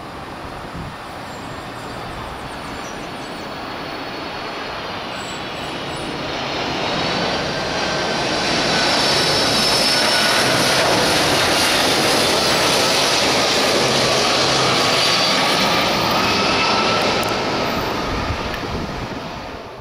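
Boeing 767-300ER jet engines on final approach, flying low past: a rushing roar that builds over the first several seconds, with high turbine whines on top. The whines slide lower in pitch as the airliner passes, and the sound eases near the end.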